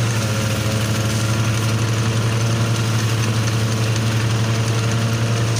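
Small engine of a portable rice thresher running steadily at a constant speed, a continuous low drone.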